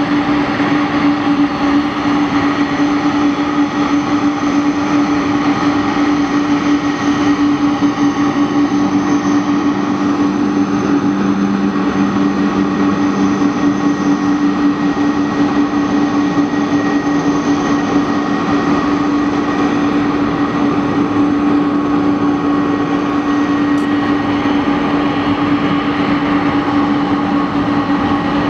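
McDonnell Douglas MD-11's three jet engines running steadily at taxi power, a constant rushing noise with a strong steady hum and fainter whines above it. A second, lower hum joins for a few seconds about a third of the way in.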